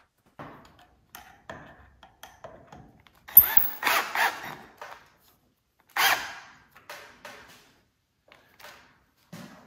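Milwaukee cordless drill/driver driving a screw into the motor housing of a DeWalt miter saw. It runs in two short bursts, about three and a half seconds in and again at about six seconds, with small clicks and knocks of the bit and parts in between.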